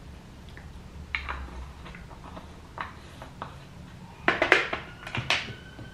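Several light clicks, then a louder clatter of small hard objects being handled and set down, about four seconds in.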